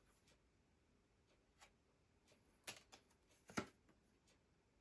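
Near silence with a few faint, brief clicks or rustles, the two clearest in the second half: small handling sounds.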